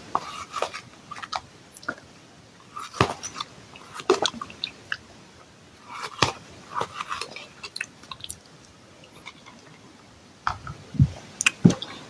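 Irregular soft clicks and small smacks close to the microphone, scattered through a pause in the talk.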